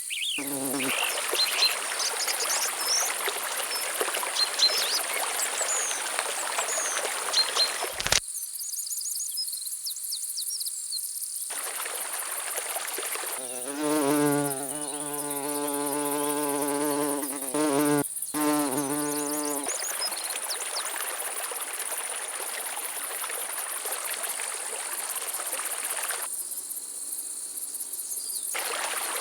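A steady high-pitched insect trill, with scattered bird chirps over it. Midway a flying insect buzzes close by for about six seconds.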